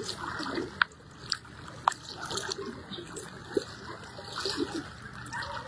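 Floodwater flowing and splashing steadily, with a few sharp clicks in the first two seconds.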